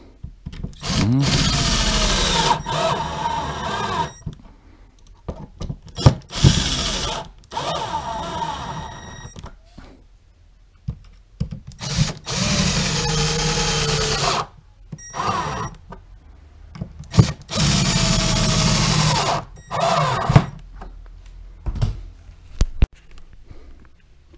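Drill-driver running in four runs of a few seconds each, its pitch dipping and rising as it drives self-tapping screws into a wooden sofa-frame beam, with short knocks between the runs.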